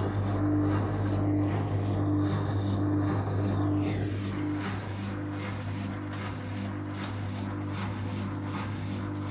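Beko BKY 2317 B washing machine running empty, its drain pump giving a steady low hum. Over the hum, a higher tone pulses on and off about once a second.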